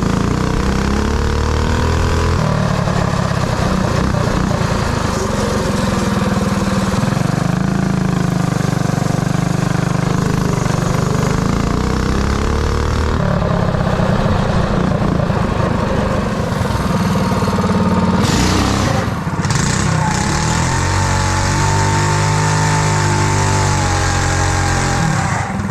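Mini bike's Predator 212 single-cylinder four-stroke engine running under riding, its pitch rising and falling repeatedly as it is throttled up and eased off. There is a brief rush of noise about two-thirds of the way through.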